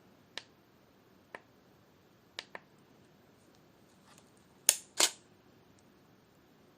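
Camera shutter firing: two loud clicks about a third of a second apart near the end, after several faint, short clicks.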